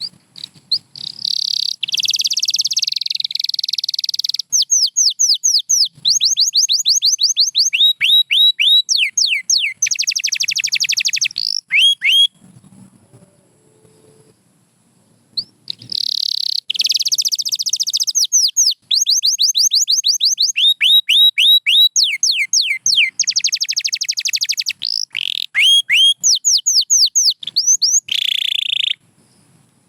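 Domestic canary singing: long phrases of fast trills and rapidly repeated falling whistle notes. A pause of about three seconds near the middle separates two phrases.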